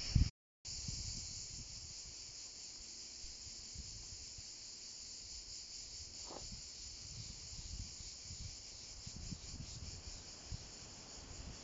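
Insects chirring steadily in a high-pitched, faintly fluttering drone, with a low rumble beneath; the sound drops out for a moment just after the start.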